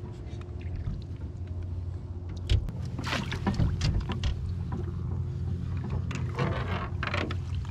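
A dip net plunging and churning in shallow water beside a boat, splashing in two bursts, with a sharp knock just before the first, over a steady low hum.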